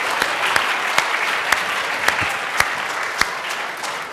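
Audience applauding, a dense patter of clapping with a few louder single claps standing out, dying away near the end.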